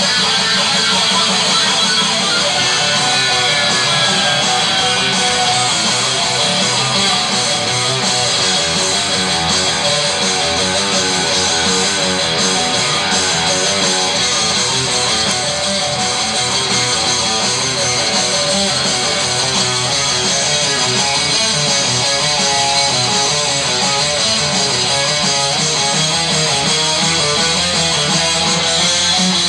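Single-cutaway electric guitar played without a break: a steady stream of picked notes and chords.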